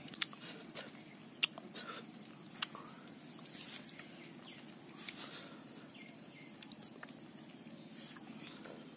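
Light handling sounds of a cut fruit half being dabbed into chili salt on a sheet of paper: a few scattered clicks and taps, then two short paper rustles.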